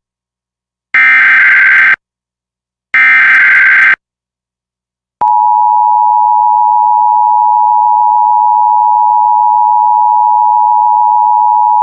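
Emergency Alert System signal: the last two of the three SAME digital header bursts, each about a second of harsh warbling data tones two seconds apart, then about five seconds in the steady EAS attention tone starts and holds.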